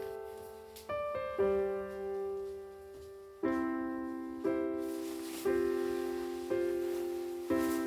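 Background piano music: soft chords struck about once a second, each left to ring and fade.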